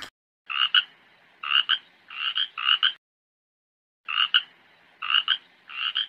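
A frog croaking in short calls, each with two quick pulses. The calls come in two runs, four and then three, with a pause of about a second between them.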